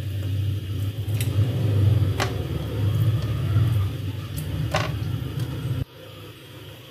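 A kitchen knife slicing raw chicken breast on a wooden cutting board, with a few sharp taps as the blade meets the board. Under it, a steady low rumble that cuts off suddenly near the end.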